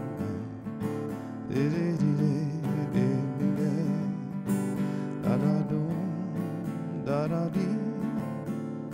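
Black cutaway Takamine acoustic-electric guitar strummed steadily in an instrumental passage, without words.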